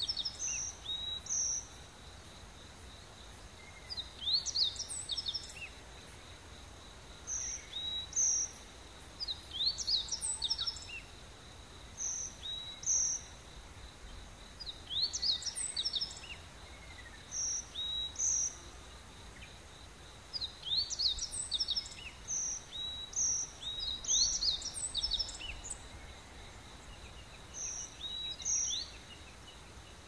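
Tropical rainforest birds calling, each call a quick cluster of rising whistled notes followed by short paired notes, repeated every two to three seconds. A faint steady high insect hum runs underneath.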